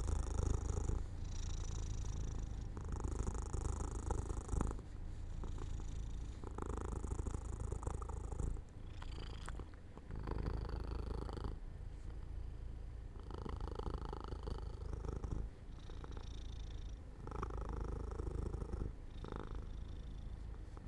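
Domestic cat purring up close, a steady low rumble that swells and dips with each breath in and out, about every two seconds.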